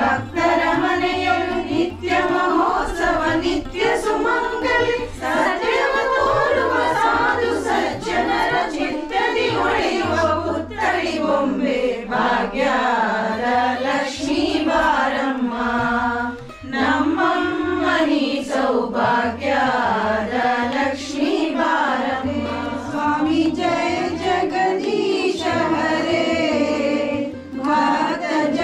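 A group of women singing a Hindu devotional song together, one continuous sung melody with few pauses.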